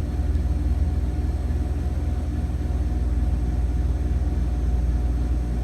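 Turbo Air MST-72-30 prep table's condensing unit running: the Kulthorn compressor and condenser fan give a steady low hum with an even whoosh of air.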